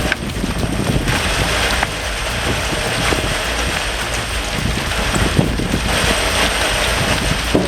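Heavy material-processing machinery running: a dense, steady clatter of many small impacts over a low rumble.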